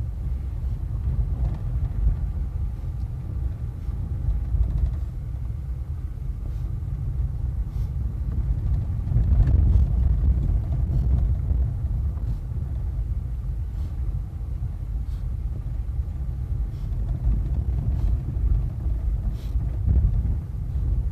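Car driving slowly on an unpaved dirt road, heard from inside the cabin: a steady low rumble of engine and tyres, with a few faint ticks scattered through it.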